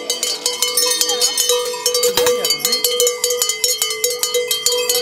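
Several cowbells rung rapidly and continuously by people walking in a procession, their overlapping strikes ringing at a few different pitches, with voices mixed in.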